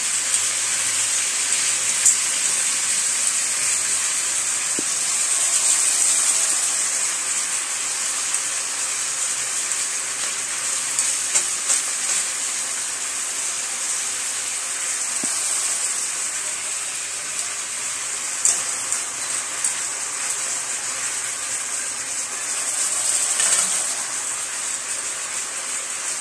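Food frying in hot oil in a wok: a steady sizzle, with a few sharp clicks of metal tongs against the pan as the pieces are turned.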